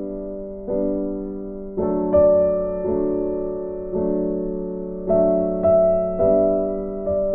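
Background music: soft piano-like keyboard playing sustained chords, a new chord struck about once a second and fading between strikes.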